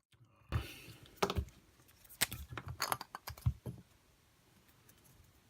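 A quick run of small clicks, taps and knocks from small metal tools and parts being handled on a workbench, lasting about three seconds, then stopping.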